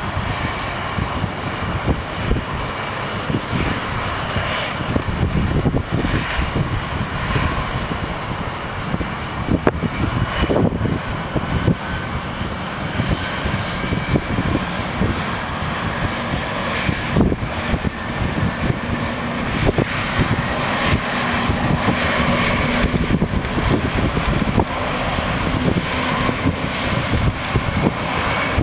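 Boeing 787-8 twin jet engines running at low taxi power, a steady whine under heavy wind buffeting on the microphone. A low steady hum comes in about two-thirds of the way through.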